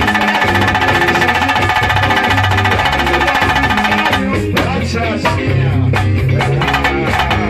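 Live band music with drums and a bass line; a loud held chord sits over the rhythm for about the first four seconds, then drops out and the bass-and-drum groove carries on.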